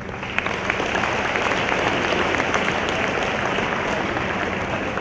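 A large audience applauding, the clapping swelling over the first second and then holding steady.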